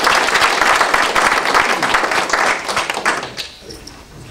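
Audience applauding, a dense patter of many hands clapping that dies away about three seconds in.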